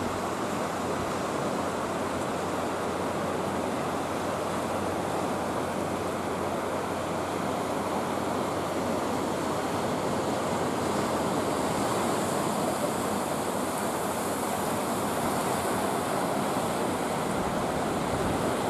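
Sea surf washing over shoreline rocks: a steady, unbroken rushing noise, growing a little brighter and hissier about two-thirds of the way through.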